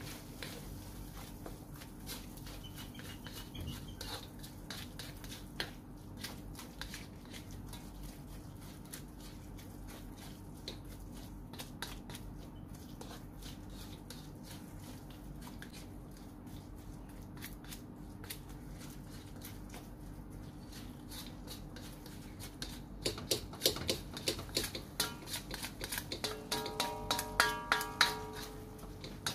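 Spatula scraping and tapping against a metal wok as ground pork is stir-fried, over a steady low hum. The strokes grow louder and quicker in the last several seconds, and a held tone joins in near the end.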